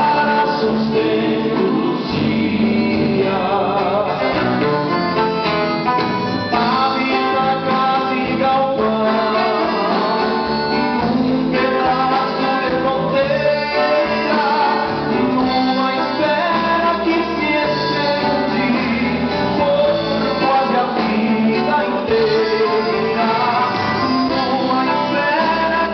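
Live band music: a man singing into a microphone over accordion, acoustic guitars, electric guitar and drums, amplified through a PA.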